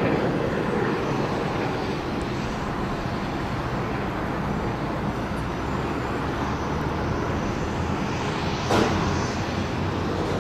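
Antonov An-70's Progress D-27 propfan engines idling, a steady drone with a low hum. About nine seconds in there is a brief, louder rush of noise.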